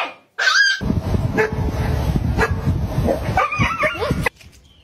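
Dogs barking and yipping: a short high yip about half a second in, then a few barks near the end over a loud low rumble of noise that cuts off suddenly.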